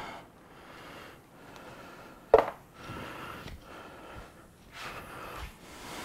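A man breathing heavily and unevenly close to a clip-on lavalier mic while he works at the tire plug tool, with one short sharp sound about two seconds in.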